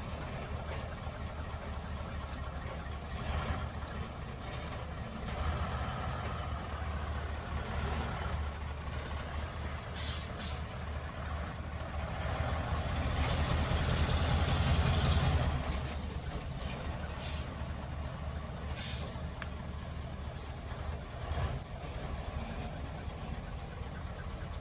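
Heavy logging truck's diesel engine running under load, swelling louder for a few seconds midway, with a few short sharp sounds in between.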